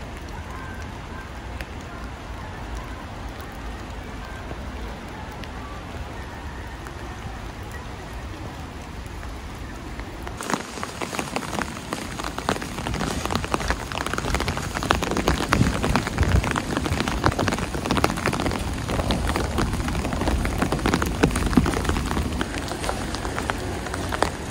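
Steady rain falling, an even hiss. About ten seconds in it jumps to a louder, denser patter of raindrops close by, rain hitting an umbrella overhead.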